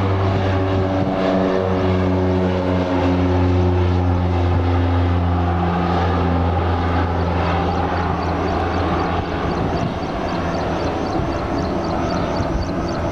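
Single-engine Cessna floatplane's propeller and engine running at takeoff power as it lifts off and climbs away, a strong droning hum whose pitch slowly falls as it passes, then fading a little as it moves off.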